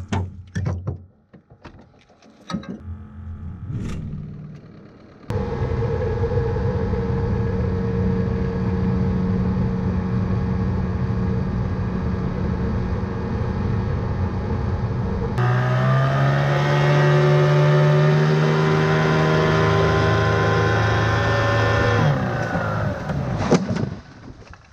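Outboard motor of a jon boat running under way, after a few seconds of scattered knocks. About halfway through it rises in pitch and gets louder, holds there, then drops off shortly before the end.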